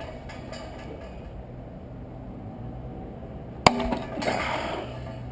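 A single sharp metal clank with a brief ring, from a tool striking a part of a gas water heater being dismantled, about three and a half seconds in, followed by about a second of metal scraping and rattling.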